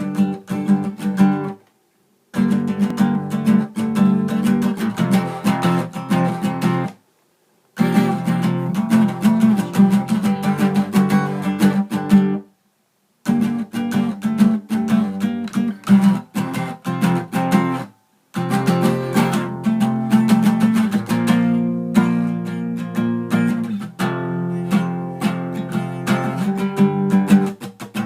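Acoustic guitar playing strummed and plucked chords, broken four times by short gaps of dead silence where the sound cuts out completely.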